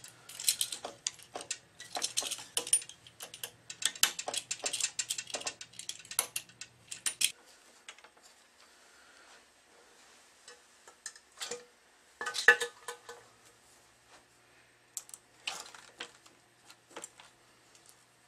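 Metal clicking and rattling of racket-stringing clamps, pliers and string being handled on a stringing machine: a dense run of clicks, then scattered clicks with a short clatter about twelve seconds in. A faint low hum under the clicking stops about seven seconds in.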